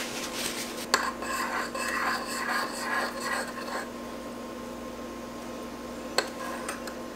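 Spoon stirring tea in a ceramic mug, scraping and rubbing round the inside in a quick rhythm, with a sharp clink about a second in and another near the end.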